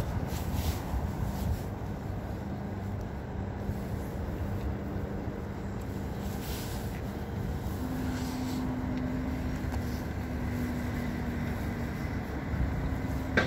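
Lorry engine running steadily with a low hum that steps up slightly in pitch about eight seconds in.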